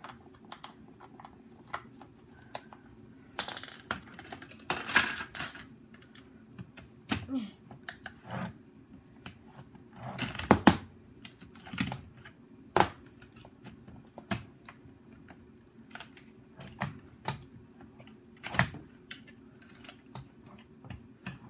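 Irregular clicks, taps and knocks of hard plastic parts being handled and pried at, as the battery compartment of a Nerf HyperFire flywheel blaster is worked open. There are a few louder knocks about five, eleven and thirteen seconds in, with a faint steady hum underneath.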